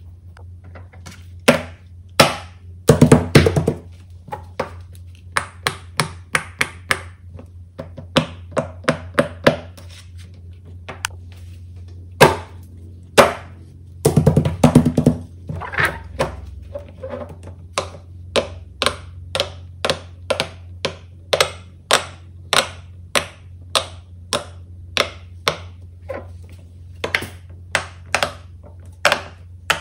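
Silicone pop-it fidget toy bubbles being pressed in with fingertips, giving a long run of sharp pops with quick flurries about three seconds in and again about halfway through, then more evenly spaced pops.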